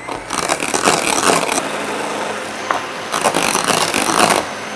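Electric hand mixer running, its beaters whipping egg whites past soft peaks into meringue in a mixing bowl. The steady motor whir grows louder twice as the beaters are worked through the bowl.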